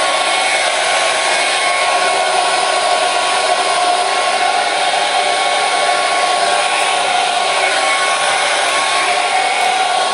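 Hair dryer running steadily, a loud even rushing of air with a faint steady motor whine.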